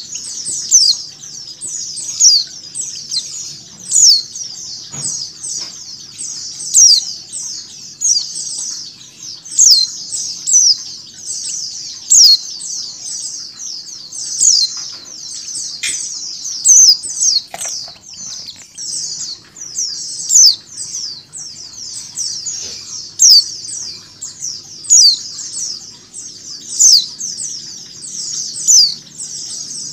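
White-eyes (pleci) chattering: a dense, unbroken twittering of a flock of white-eyes, with a female's short, sharp calls (ngecal) standing out loud about every one to two seconds.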